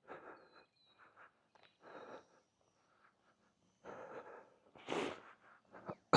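A man breathing and sniffing heavily as he walks, in short noisy puffs every second or two; the strongest comes about five seconds in.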